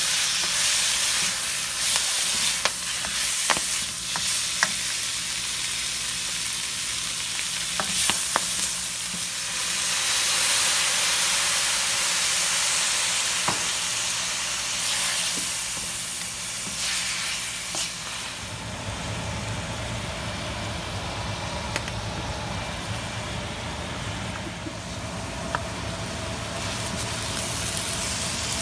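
Prawns, bok choy and onions sizzling in a hot wok as they are stir-fried, with scattered clicks and scrapes of a spatula against the pan. The sizzle eases a little past the halfway point.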